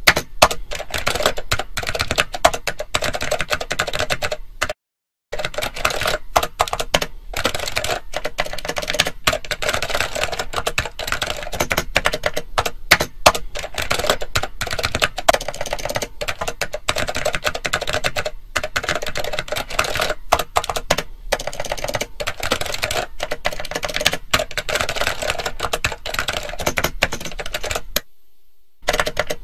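Rapid, continuous clicking of keys being typed, a typing sound effect, with a brief break about five seconds in and another near the end.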